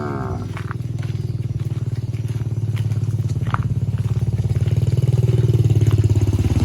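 A cow's moo trails off at the start, then a motor engine runs steadily and grows slowly louder, with a few faint clicks over it.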